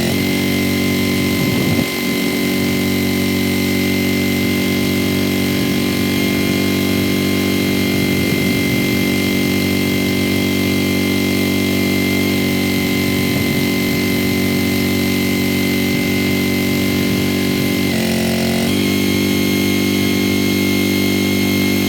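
Engine of a Wolfe Ridge firewood splitter running steadily while being warmed up in the cold, its note dipping briefly near the end.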